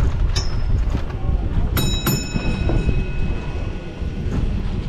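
Sharp metallic clangs over a steady low rumble on a tram's roof. There is one strike about half a second in, then two quick strikes about two seconds in whose ringing tones hang on for over a second.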